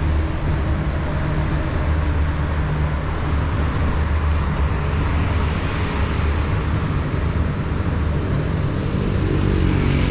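Steady street traffic heard from a bicycle in motion: a continuous rumble of passing cars, with a motorcycle going by near the end.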